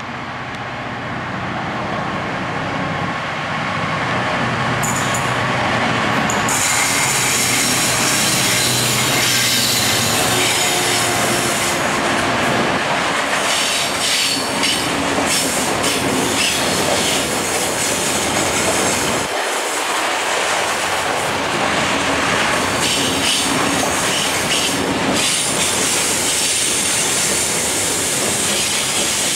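Class 66 diesel-electric freight locomotive running as it approaches and passes, its engine note growing louder over the first several seconds. About twelve seconds in the engine gives way to a long rake of coal hopper wagons rolling by, wheels clattering over the rails with a high squeal on the curve.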